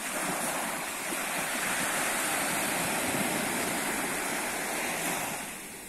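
Small breaking wave washing up the shoreline in a steady hiss of surf, fading out near the end as it runs back.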